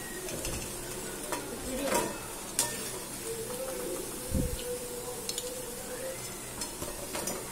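Battered cauliflower florets sizzling steadily in hot oil in a steel kadai, the sign that they are deep-fried. A perforated steel skimmer scrapes and clinks against the pan a few times as the fried pieces are lifted out.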